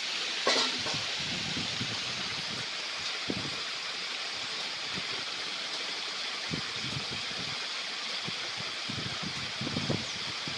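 Water gushing steadily from a pipe into a metal tray and brick channel, with splashing as groundnut kernels are stirred and washed in it by hand. A short sharp knock about half a second in.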